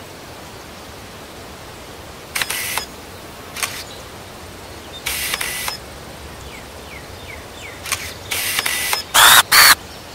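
Camera shutter sound effects, a series of irregularly spaced clicks over a steady hiss, getting louder and quicker near the end.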